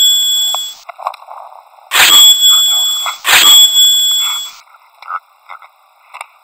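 Loud, high-pitched dings, each struck sharply and ringing away over about a second: one fading at the start, then two more about two and three seconds in.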